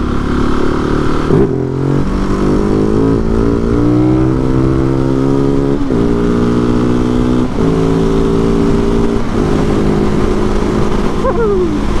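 Husqvarna 701 Supermoto's single-cylinder engine accelerating through the gears. The pitch climbs in each gear and drops at four upshifts, about one and a half, six, seven and a half and nine and a half seconds in.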